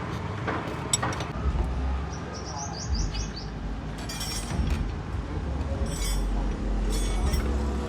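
A small bird chirping a quick run of about six short falling notes a few seconds in, over an intermittent low rumble.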